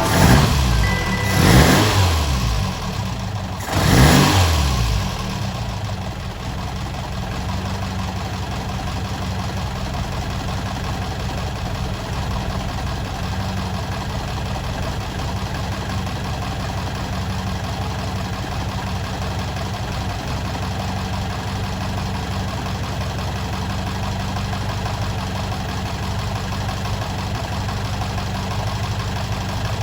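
Autobianchi A112 Abarth's four-cylinder engine blipped three times in the first few seconds, then settling into a steady idle.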